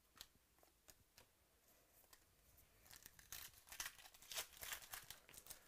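Trading cards being handled and flipped through by hand: faint, scattered papery flicks, then a quick run of card-on-card slides and crinkles in the second half.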